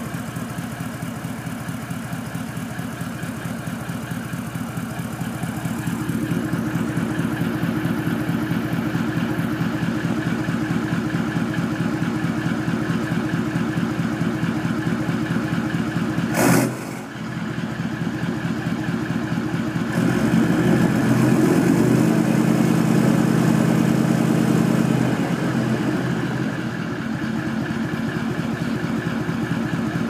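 Toyota 76 Series LandCruiser's 4.5-litre twin-turbo diesel V8 running at the tailpipe of a 3-inch turbo-back exhaust, a steady even pulsing idle. About 20 seconds in it runs noticeably louder for around five seconds, then drops back to idle.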